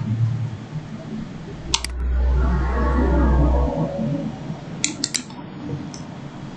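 Computer mouse clicks: a double click about two seconds in and a quick cluster of clicks about five seconds in. Between them comes a low rumble lasting about two seconds.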